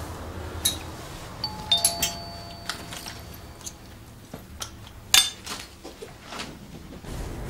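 A two-tone doorbell chime rings about a second and a half in and fades after about a second and a half, among scattered clicks and knocks; a sharp knock about five seconds in is the loudest.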